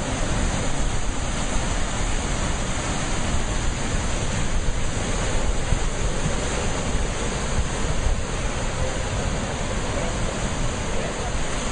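Sea surf: a steady rushing of waves that goes on without a break.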